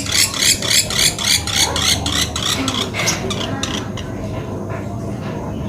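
Pelatuk beras (sampit) bird calling: a rapid run of sharp, high notes, about five a second, that stops about three and a half seconds in.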